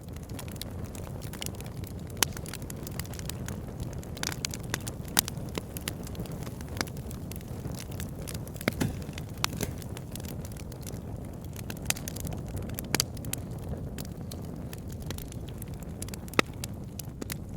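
Wood fire burning in a fireplace: a steady low rumble of flames with sharp, irregular crackles and pops, a louder pop about two seconds in and another near the end.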